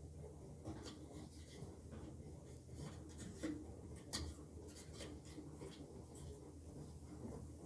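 Faint scraping and rubbing with scattered light clicks, a few sharper near the middle, as caked lint is cleaned out of a dryer's blower housing by hand.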